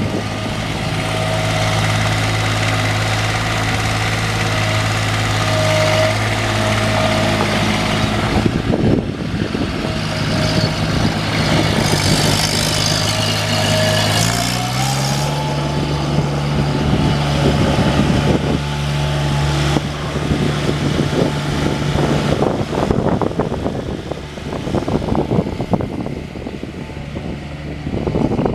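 Loader backhoe engine running steadily with a thin whine over it, then stepping up in speed about halfway through and holding the higher speed.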